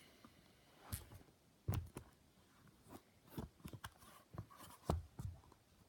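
Handling noise from a handheld camera: scattered soft knocks and clicks with low rustling.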